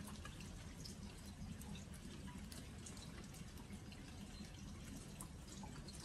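Autumn rain dripping onto glazed earthenware jars: scattered, irregular drop ticks over a faint steady background.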